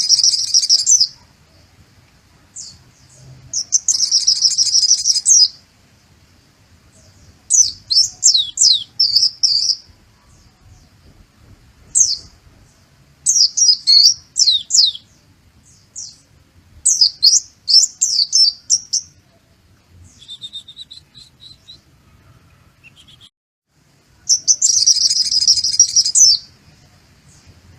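Pleci (white-eye) singing a loud, high song made of kolibri muncang (sunbird) phrases it has learned. It comes in separate bursts: dense rapid twittering trills at the start, around four seconds and near the end, and between them runs of quick down-slurred notes, each phrase lasting a second or two with short pauses between.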